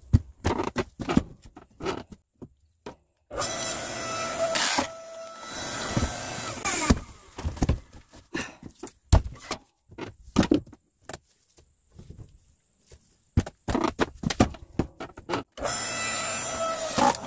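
Split firewood knocking and clattering as pieces are handled and tossed onto each other, in many separate clunks. In two stretches a steady whirring hum runs underneath.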